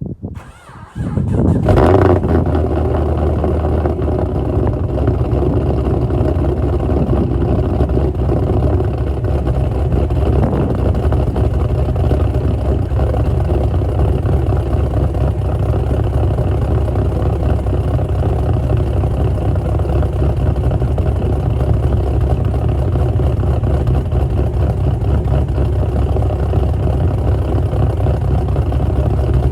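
2005 Pontiac GTO's LS2 6.0-litre V8 on a cold start: it catches about a second in, flares briefly, then settles into a steady idle.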